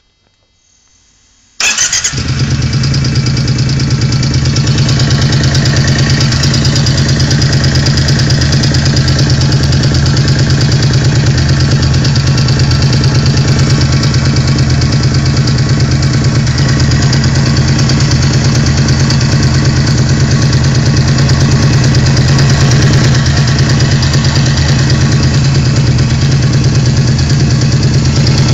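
An engine comes in suddenly about a second and a half in and runs steadily with a rattling clatter, the rattle that is the subject of the recording.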